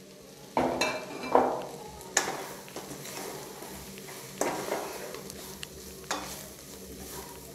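Wooden spatula stirring grated coconut into a frying masala in a stainless steel pressure-cooker pan, with several sudden scraping strokes against the pan over a light, steady sizzle.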